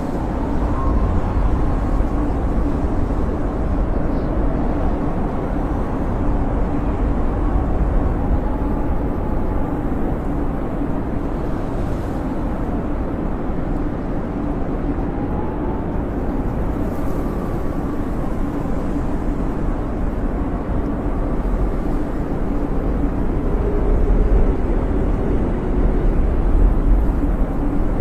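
Howling blizzard wind: a steady deep roar with faint whistling tones that rise and fall.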